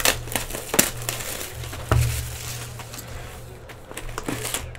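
Plastic shrink wrap being torn and peeled off a cardboard trading-card box, crinkling, with several sharp crackles.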